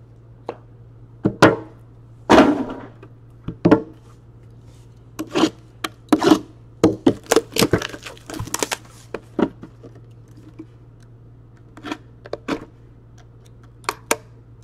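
Trading-card packaging of cardboard, plastic and a metal tin being handled and opened by hand: irregular sharp clicks, taps and crinkles, thickest about seven to nine seconds in, over a faint steady low hum.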